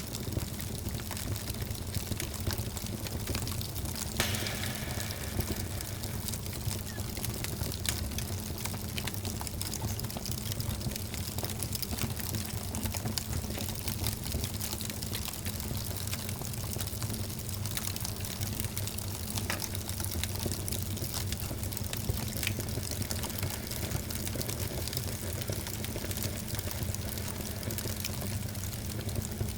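Wood fire burning in a fireplace: a steady hiss and low rumble with scattered small crackles and pops, one sharper pop about four seconds in.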